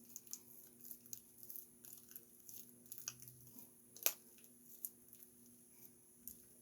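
Sticky slime being kneaded and stretched by hand, with small irregular squishes and crackles and one sharper click about four seconds in. A faint steady hum sits underneath.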